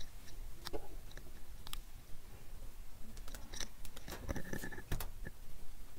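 Scattered light clicks and crinkles of a plastic pack being handled on a kitchen scale.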